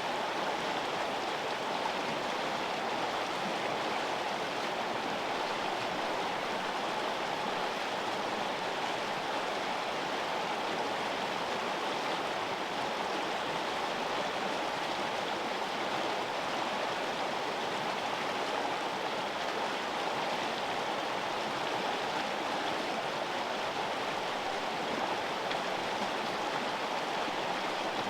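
A river flowing: a steady, unbroken sound of running water.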